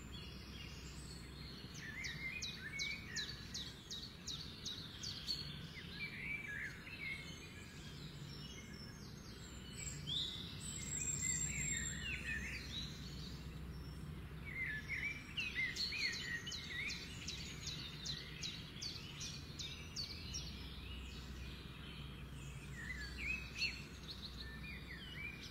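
Small birds chirping and singing, with rapid trills and quick rising and falling calls repeating throughout, over a steady low hum.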